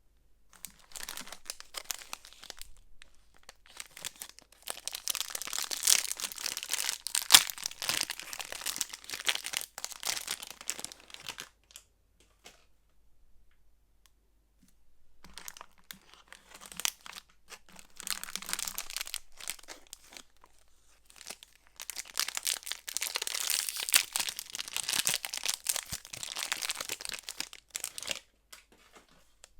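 Soap packaging being unwrapped by hand: wrappers crinkling and tearing in long stretches, with a few sharp crackles, broken by quiet pauses about twelve and twenty seconds in.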